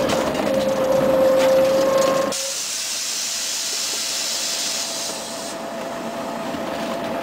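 Interior of a 1996 Scania CN113ALB city bus driving on a wet road: steady running noise with a whine. About two seconds in the sound changes abruptly, and a hiss lasts for about three seconds over a steadier, higher whine.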